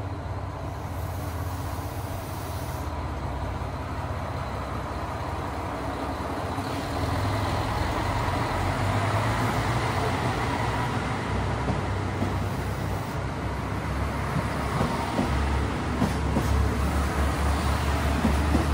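JR Shikoku KiHa 185-series diesel railcar pulling out of a station, its diesel engines running under power and getting louder about halfway through as the cars pass at increasing speed. A few short clacks near the end.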